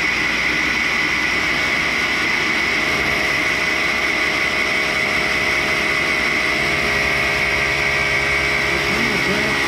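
1942 Cincinnati universal tool and cutter grinder running a thin saw blade through raw carbide: a steady high-pitched whine over a constant hiss, unchanging throughout.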